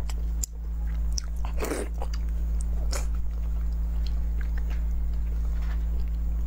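Close-up mouth sounds of a person biting into and chewing a large soft piece of cooked food, with a few distinct wet bites about half a second, a second and a half and three seconds in. A steady low hum runs underneath.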